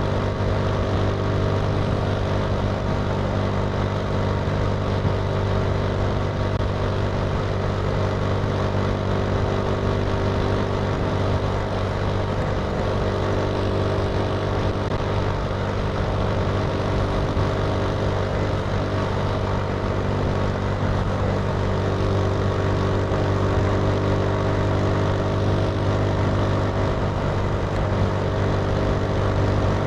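Italika TC300 motorcycle engine running steadily at an even pitch, with no revving or gear changes.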